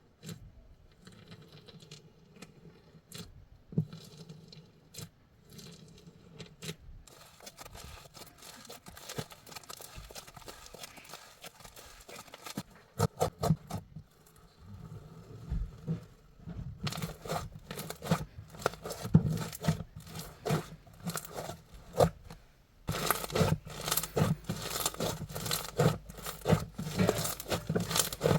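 Crunchy slime being squeezed, poked and stretched by hand, making crackling and popping clicks. The clicks are sparse at first and grow denser and louder in the second half.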